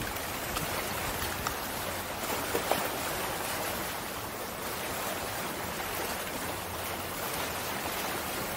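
Small sea waves washing against a rock breakwater: a steady, even hiss of water.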